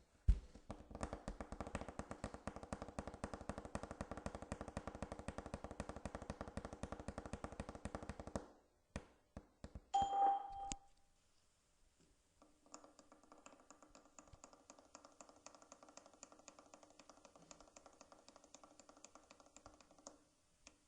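Skype test call: a rapid, even train of clicks over a steady hum is recorded for about eight seconds. A short electronic beep follows, and then the same clicking is played back fainter and thinner through the call.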